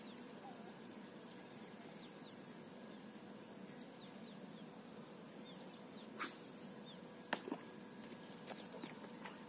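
Small birds chirping: short, falling high chirps repeated over a faint steady outdoor background. A couple of sharp clicks stand out about six and seven seconds in.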